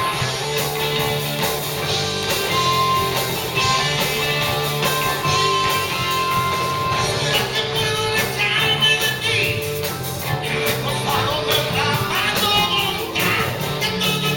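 Rock band playing live and loud, electric guitar to the fore, with a singer's voice in the mix.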